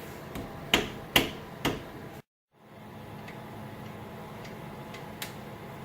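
Metal tool clicks from putting the rear brake caliper bolts back in: three sharp clicks close together, a brief dropout, then a few faint ticks over a steady low hum.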